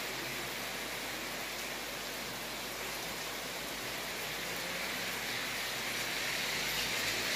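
Heavy rain falling on a wet street: a steady hiss that grows slightly louder near the end.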